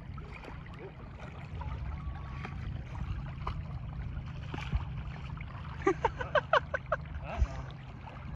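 Small waves lapping at a sandy lake shore under a steady low rumble of wind on the microphone. About six seconds in comes a short run of quick, high calls.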